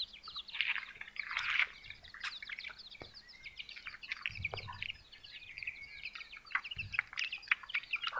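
Small birds chirping busily, a steady stream of short, high chirps overlapping one another.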